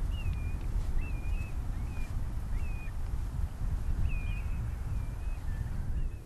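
Wind buffeting the microphone, with a bird repeating short whistled chirps about once a second above it. The wind noise drops away suddenly near the end.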